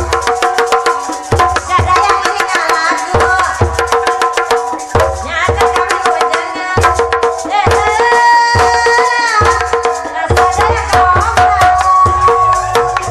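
Sundanese ronggeng dance music played live: deep hand-drum strokes, a repeated ringing pitched note and a melody line that slides between pitches.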